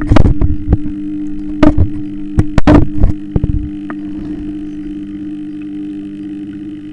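Submerged aquarium wavemaker pump (Sakai Pro AA200) humming steadily, heard through the water. There are several loud knocks and bumps in the first half, then only the hum.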